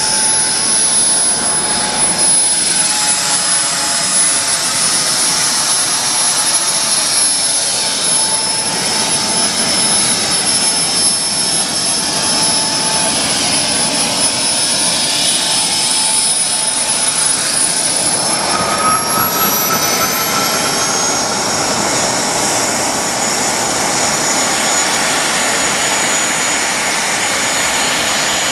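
Wren model gas turbine in an RC Bluebird hydroplane running with a steady high whine over a jet hiss. Around two-thirds of the way through, its whine shifts upward in pitch.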